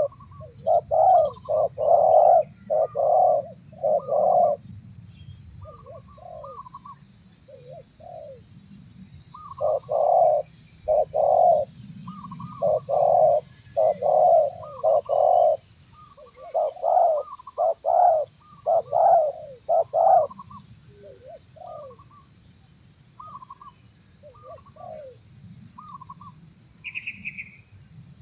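Spotted doves cooing: runs of loud, close coos repeated in quick succession, with quieter coos in the gaps between the runs.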